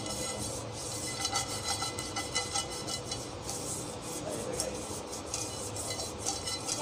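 A pastry brush rubbing over the inside of a nonstick frying pan, greasing it with a quick, irregular run of scratchy back-and-forth strokes.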